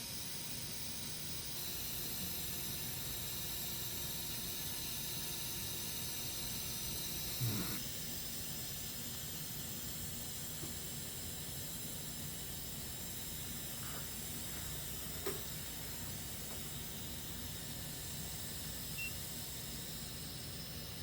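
Steady background hiss, with a brief low knock about seven and a half seconds in and a faint click about fifteen seconds in.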